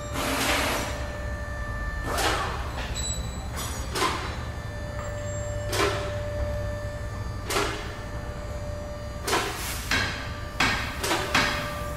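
Tool knocks in a garage workshop: a sharp strike about every two seconds, then a quicker run of several strikes near the end, over a steady low hum.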